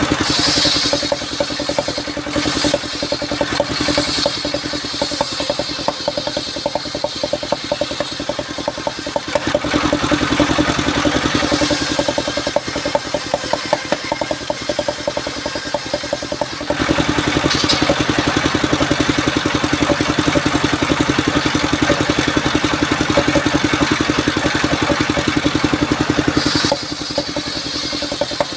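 Engine-driven circular saw of a mobile sawmill cutting sengon (albasia) timber into rafters: the engine runs steadily with a fast regular pulse, and the hissing cutting noise rises and falls as wood is fed through the blade, with the longest cut from about two-thirds of the way in until shortly before the end.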